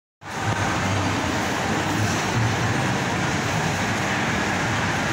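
Steady background hum of a busy indoor shopping-mall atrium, an even wash of echoing noise from the hall and the people in it.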